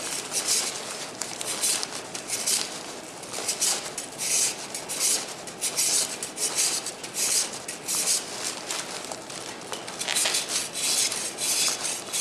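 A Surform rasp shaving hard, dry plaster off the back of a face cast, in quick repeated scraping strokes.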